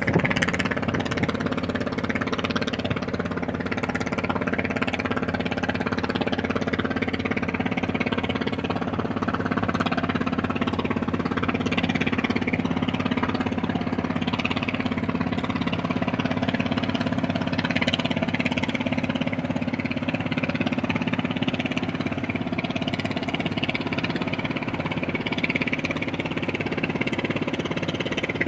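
The ship KL Laksamana Malahayati's diesel engines running steadily with an even low hum as the ship gets under way from the berth.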